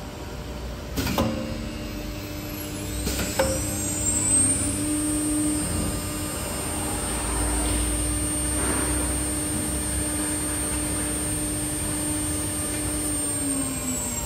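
The 9 kW air-cooled spindle of an automatic-tool-change CNC router spinning up with a rising whine, running at a steady high whine, and starting to wind down near the end, over a steady low machine hum. Two sharp knocks come in the first few seconds.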